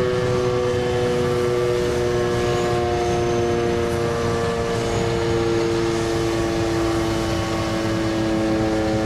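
Federal Signal Thunderbeam RSH-10A tornado siren sounding the steady Alert signal for its weekly test. It is a loud, continuous chord of two main tones, and the pitch sags slightly as it holds.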